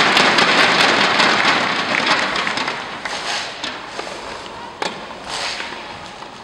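Spectators clapping after a tennis point, a dense patter of many hands that fades away over about three seconds. A single sharp knock comes about five seconds in.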